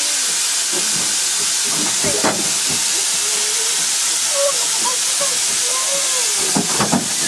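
Steady hiss of steam from Darjeeling Himalayan Railway steam locomotive No. 19, with a few short knocks about two seconds in and near the end.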